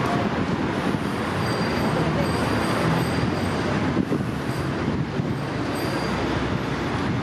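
Steady rushing noise of riding a bicycle on a city street: wind on the microphone with a low rumble, and tyres rolling on asphalt.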